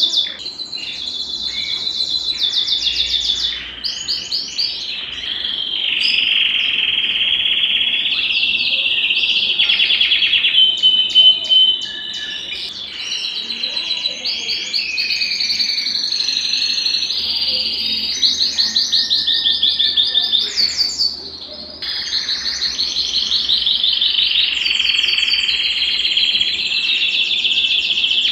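Belgian canary singing a long, continuous song of fast, high trills and warbling rolls, broken by short pauses about 4 and 21 seconds in.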